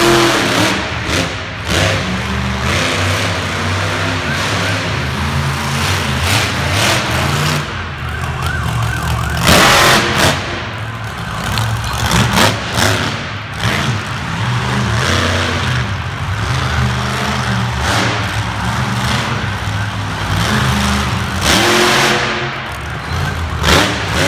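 Monster truck engine revving hard and dropping back again and again during a freestyle run, with a loud burst about ten seconds in.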